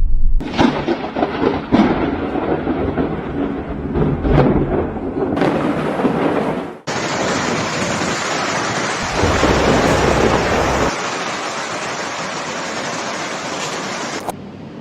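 Thunderstorm: heavy rain hissing while thunder rumbles and cracks. The sound changes abruptly several times as one storm recording cuts to the next, with a deep rumble about two-thirds of the way through.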